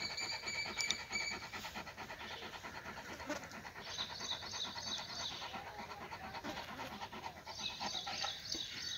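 Bully kutta-type dog panting rapidly and steadily with its mouth open.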